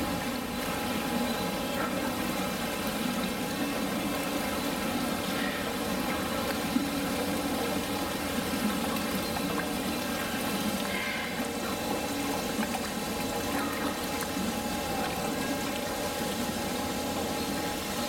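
Steady rush of running water in a penguin pool, with a constant machine hum underneath.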